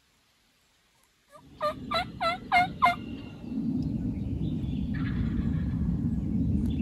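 A run of five quick turkey yelps, each note dropping in pitch and hooking back up, about three a second. They come over a steady low rushing noise that starts abruptly just before them and grows louder after them.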